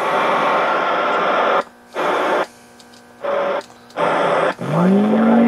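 A Kris 23+ tube CB base transceiver's receiver hissing with static from its speaker as the channel selector is turned. The hiss cuts out three times for about half a second. Near the end a signal comes in as a whistle that rises and then holds steady.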